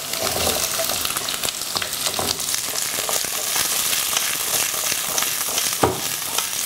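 Butternut squash cubes sizzling steadily as they fry in hot oil with garlic in a wok, with a few short knocks as the wok is handled and tossed.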